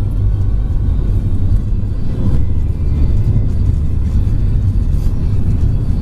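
Steady low rumble of road and engine noise inside the cabin of a moving car.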